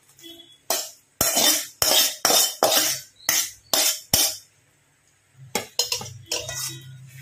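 A spatula scraping and knocking against a steel bowl in quick repeated strokes, about two or three a second, as fried vegetables are pushed out of it into a pan of sauce. Softer clatter and a low hum follow near the end.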